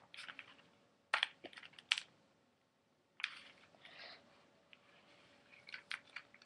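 Faint, scattered light clicks and taps with brief scratchy rustles, irregular like small objects being handled.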